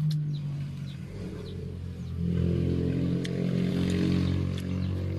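A motor vehicle's engine running at a steady pitch, getting louder about two seconds in.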